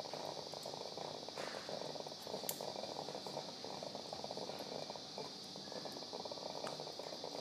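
Steady operating-theatre background hiss with a low grainy rumble and a few faint clicks.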